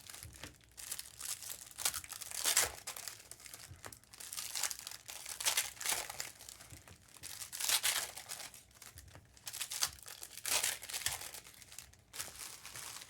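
Trading card pack wrappers crinkling and tearing as packs are ripped open and handled, in irregular rustling bursts.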